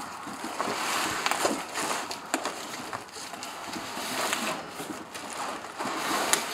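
Handling noise from a heavy boxed gun safe being walked and turned by hand: cardboard scraping and rustling, with a scatter of short knocks and scuffs.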